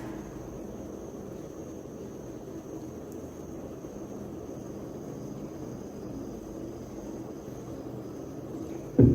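A steady low background hum with a faint high whine. A sudden loud thump comes right at the end.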